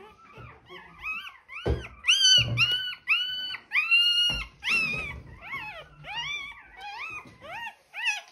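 Newborn German Shorthaired Pointer puppy crying: a rapid run of short, high-pitched squeals, about two a second, loudest in the middle.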